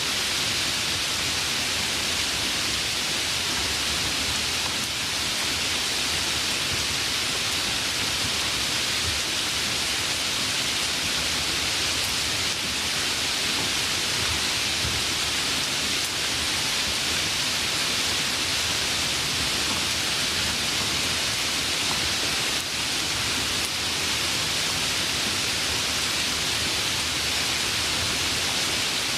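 Steady, even rainfall hiss with no thunder or other events.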